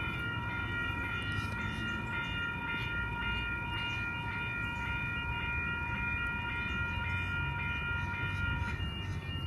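Oscar (H-set) electric train arriving at the platform: a steady high whine of several tones over a low rumble, the whine's lowest tone dropping out near the end.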